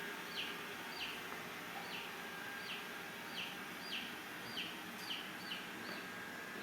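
A bird repeats a short, falling whistled note about ten times, the calls coming quicker toward the end. Under it is the steady running noise of a Xiaomi S20+ robot vacuum.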